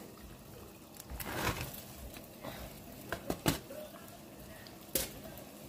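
Butter for a sauce sizzling softly in a pot, with about four sharp clinks of a utensil against the pot.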